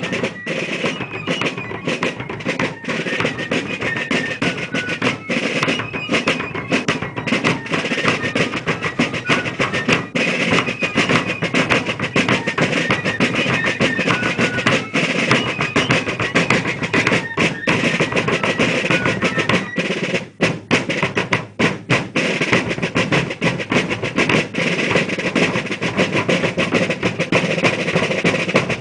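Fife and drum corps playing a march: a high, shrill fife melody over rolling snare drums and bass drum.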